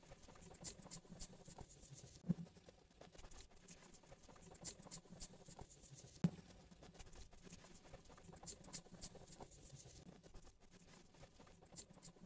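Davis eye pencil scratching across the eyebrow in short, faint strokes at irregular intervals, with two soft thumps about two and six seconds in.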